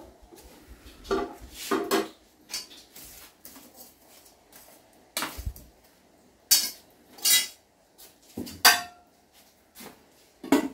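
Metal cooking pots, lids and utensils clattering: a string of irregular knocks and scrapes, one clang late on ringing briefly.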